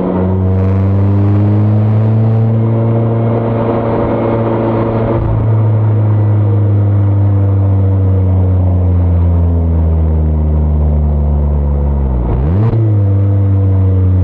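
Mazda ND Roadster (MX-5) four-cylinder engine and exhaust under way. The engine note climbs steadily for about five seconds, the revs drop at a gear change, then it holds fairly steady. Near the end the revs dip sharply and pick up again at another gear change.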